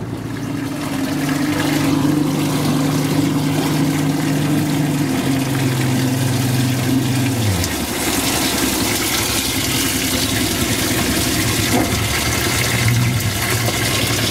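A bass boat's outboard motor running steadily, stepping down in pitch and then dying away about seven and a half seconds in. After that, water sloshes and churns loudly in the boat's livewell.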